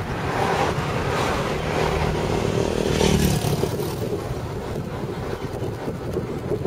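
Engine and road noise of a car heard from inside its cabin while driving. The noise is steady, swelling briefly about three seconds in.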